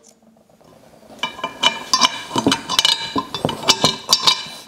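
Steel bolt and washers clinking against the mower's steel handle tubes as the top bolt is fitted: a quick run of small metallic clicks with a light ringing, starting about a second in.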